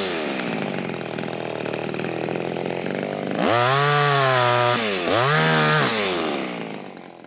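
Small two-stroke clone chainsaw idling, revved up twice to full throttle in quick succession a few seconds in, then dropping back to idle and fading near the end.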